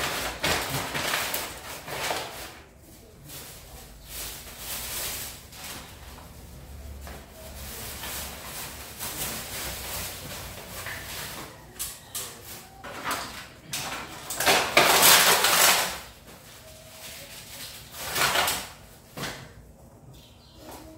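Plastic and paper bags rustling and crinkling, with light knocks of small items, as trash is gathered off a table into a plastic bag. The loudest, longest rustle comes about two-thirds of the way through.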